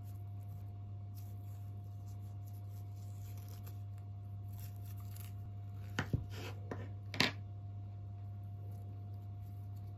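Skin being peeled by hand off a soft cooked sweet potato: faint rubbing and tearing, with a few sharper scrapes and tears about six to seven seconds in.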